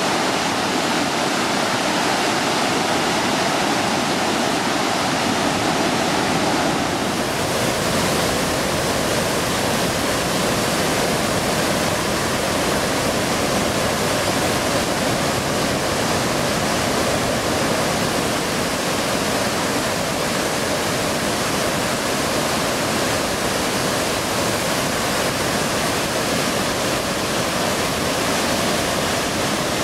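A flooded river pouring as white water through a rocky gorge and over a cascade, making a loud, steady rush of churning water. Its tone shifts slightly about seven seconds in.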